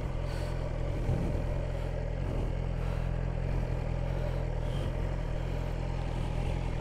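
A steady low engine hum, like a vehicle idling, holding even with no rise or fall.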